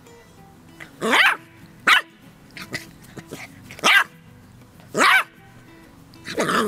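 Puppy barking: five short, high-pitched barks spaced a second or two apart, over soft background music.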